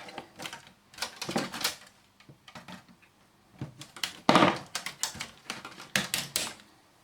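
Irregular clicks, rattles and scrapes of plastic and metal parts being handled while a satellite set-top box is taken apart, with a louder, longer clatter about four and a half seconds in.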